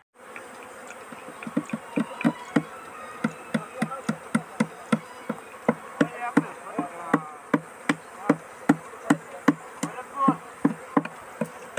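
Honeybees flying in large numbers around rows of box hives, a steady buzzing with many short sharp ticks and close buzzes, about three a second, as bees pass right by or hit the microphone.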